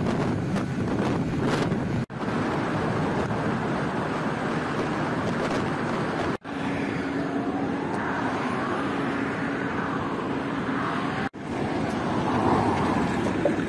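Steady outdoor noise of wind buffeting the microphone over a low engine rumble, broken by three sudden short drop-outs where the footage is cut.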